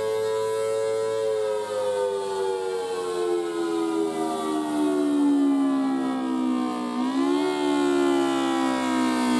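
Federal Signal Thunderbolt 1000T siren sounding the wailing attack signal: its pitch holds, then slides slowly down over several seconds, lifts briefly about seven seconds in, and settles low again.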